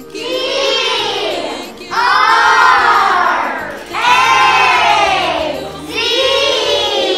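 A group of children shouting together in unison: four long, drawn-out shouts about two seconds apart, each rising and then falling in pitch.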